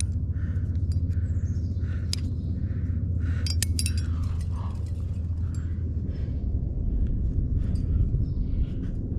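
Metal trad-climbing gear (carabiners and cams racked on a harness) clinking and jangling, with a cluster of sharp clinks a few seconds in, over a steady low rumble.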